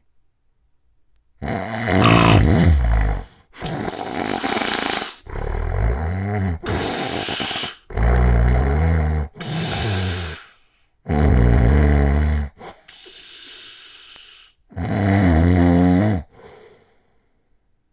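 Heavy snoring from a man with sleep apnea: after a short silence, about nine loud, harsh snoring breaths come in quick succession. One near the middle is a quieter hissing breath.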